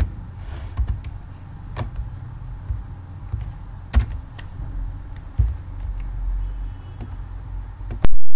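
A few scattered computer keyboard keystrokes and clicks, spaced a second or more apart, over a low background rumble. The sound breaks off abruptly near the end.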